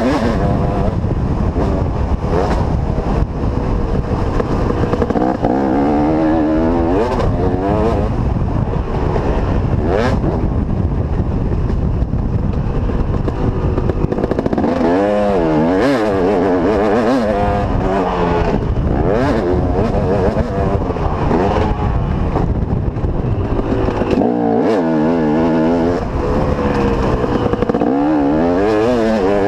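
Motocross bike engine under load, revving up and down again and again as the rider opens and closes the throttle and shifts along a dirt track, heard close up from the rider's seat.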